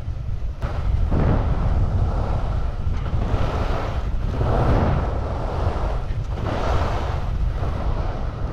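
Skis carving and scraping across snow in a run of turns, the swish swelling every second or two, under a heavy rumble of wind buffeting the microphone.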